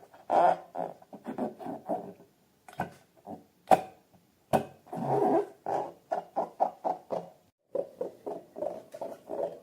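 Slime being squeezed and squished by hand: a quick run of short wet squelches, with two sharp snaps about four seconds in.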